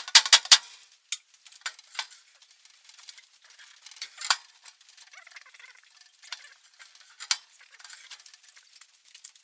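Light metallic clicks and clinks from a thin-sheet metal tool box being handled: a quick run of them at the start, then single ticks now and then over faint rustling.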